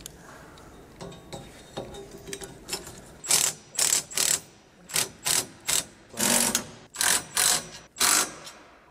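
Compact cordless impact driver run in short bursts, about ten in all starting some three seconds in, tightening the nuts on the bolts that fasten a swivel caster to a steel-tube cart frame.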